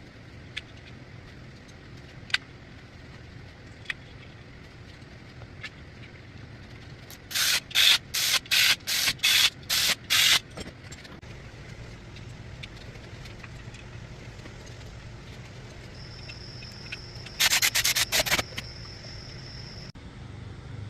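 Repeated rubbing strokes on a hard surface: a run of about ten strokes, about three a second, then a shorter, quicker run later, over a steady low hum with a few scattered clicks.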